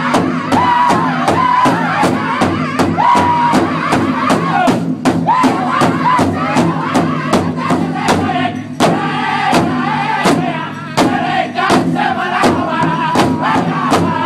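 Powwow drum group singing in high, strained unison voices around a large hide powwow drum, beaten together with sticks in a steady, fast beat of about three strokes a second.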